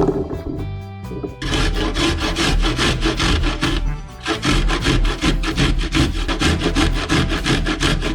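Cheese being grated on a metal grater: quick rasping strokes in two runs, with a short pause about four seconds in.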